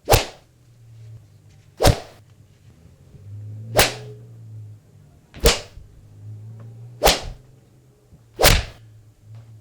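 Six quick whoosh sound effects, one about every one and a half to two seconds, each a short, sharp swish like a whip or arrow cutting the air.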